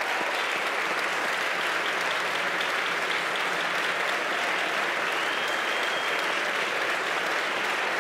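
A large audience applauding: many people clapping at once in a dense, steady roar of claps that holds at an even level.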